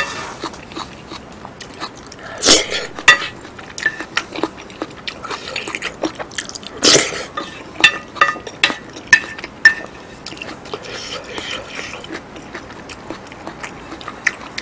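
Close-miked eating of curry with noodles and rice: chewing and wet mouth sounds, with a spoon scraping and clinking against the plate. There is a run of quick, short ringing clinks between about 8 and 10 seconds in.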